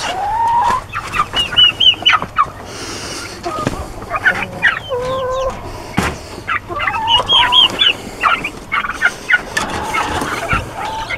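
Brown laying hens and other poultry calling over and over in short rising and falling clucks and chirps as fresh greens are brought to them. A single sharp knock comes about six seconds in, as the plastic crate is set down.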